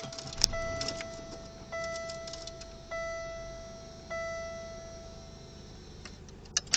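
Dashboard warning chime of a 1999 Pontiac Bonneville ringing four times, about once every 1.2 seconds, each tone fading away, over the low rumble of the car's engine just started.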